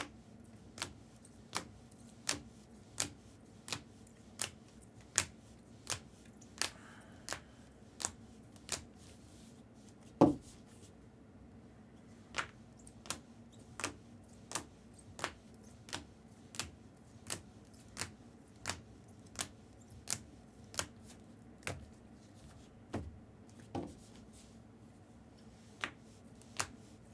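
Trading cards being set down one after another on a table, a sharp click about every 0.7 s, with one louder knock about ten seconds in.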